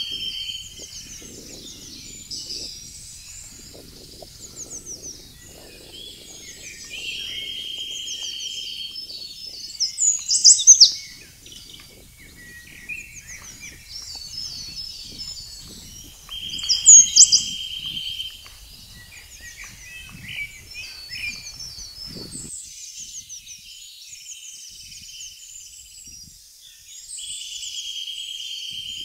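Several woodland songbirds singing together. A flat, buzzy trill repeats about every ten seconds, and a nearby bird gives loud, high, sweeping phrases about a third of the way in and again just past halfway. A faint low rumble underneath stops about three-quarters through.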